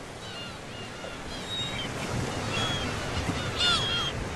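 Sea surf washing steadily with gulls calling over it, the calls growing louder in the second half, with one loud call near the end.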